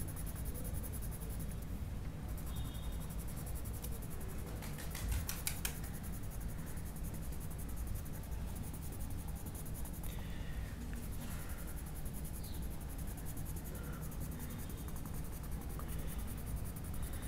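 Coloured pencil scratching on paper as dark green is shaded in, with a faint steady hum underneath.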